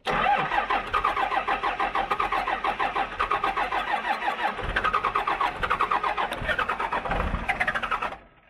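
Starter cranking the long-parked pickup's diesel engine in a steady pulsing rhythm, with fuel freshly primed to the injection pump; it turns over for about eight seconds without revving up, then stops suddenly.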